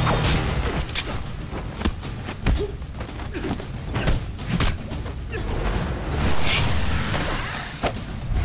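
Hand-to-hand fight sound effects: an irregular run of sharp punch and blow impacts mixed with swishes of moving arms and bodies.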